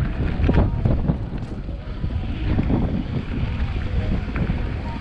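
Wind buffeting the microphone: a loud, steady low rumble with scattered knocks and rustle.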